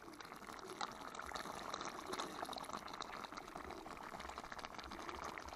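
Fish-stew gravy simmering in a pot, a steady fine crackle of small bubbles, as a ladle scoops up gravy and pours it back in.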